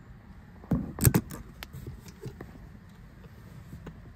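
Metal latch on a leather-look sunglasses display case clicking as it is unfastened: a quick cluster of sharp clicks about a second in, then a few fainter clicks and knocks as the lid is opened.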